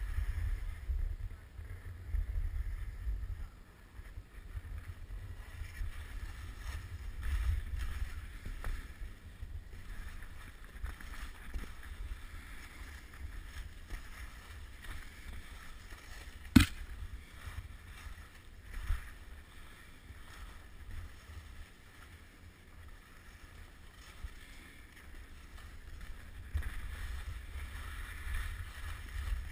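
Wind rumbling on a helmet-mounted GoPro Hero 2 while skis hiss and scrape over packed snow at speed, swelling and easing with the turns. One sharp click about sixteen seconds in.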